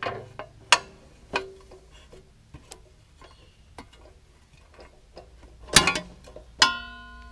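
Metal front panel of a backhoe control console being worked off past the control levers: scattered light clicks and knocks, a louder knock about six seconds in, then a clang near the end that rings on.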